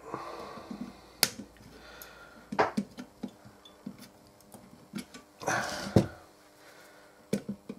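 Flush side cutters snipping the excess leads of a freshly soldered diode off a circuit board: several sharp snips a second or more apart. A short scraping rustle comes about five and a half seconds in.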